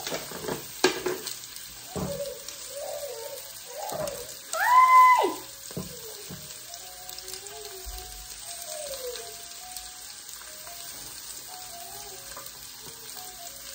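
Sausages frying in a stainless steel pan, a steady faint sizzle, with a few sharp kitchen clinks near the start. A brief loud high-pitched squeal, rising then falling, comes about four and a half seconds in.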